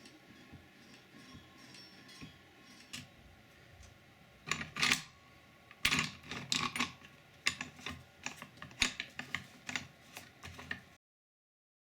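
Parts of a drill stand being handled: a run of irregular clicks and light knocks, starting about four seconds in and cutting off abruptly near the end.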